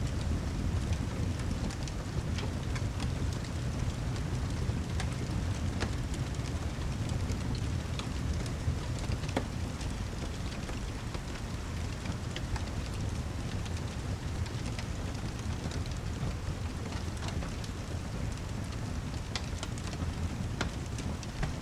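Steady heavy rain mixed with a burning fireplace: an even hiss of rainfall over a deep low rumble, with scattered sharp crackles and ticks.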